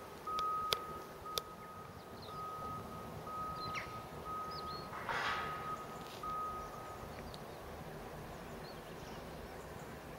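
An electronic beeper sounding a single high tone in a repeated pattern of short beeps and brief gaps, which stops about two-thirds of the way in. A couple of sharp clicks near the start, a short hiss about halfway, and faint bird chirps.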